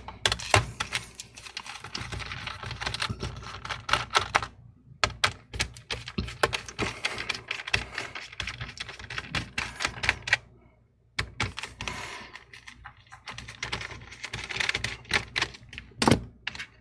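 Small Phillips screwdriver backing out the battery's mounting screws inside an opened laptop: a dense run of light clicks and ticks of the metal tip on the screw heads and the plastic chassis. The clicking stops briefly about two thirds of the way through.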